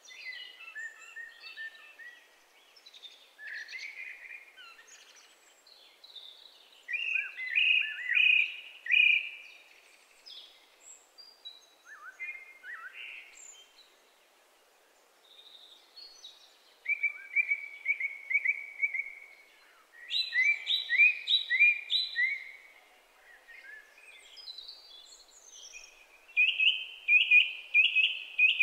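Songbirds singing, in varied phrases of quick repeated notes, with several louder runs of rapid notes, the last near the end.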